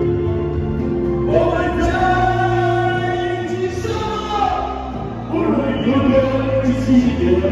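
Music with long, held sung vocal notes over sustained accompaniment; the voices come in about a second and a half in.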